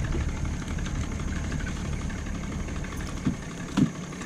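Boat motor idling with a steady low hum, and two short thumps near the end.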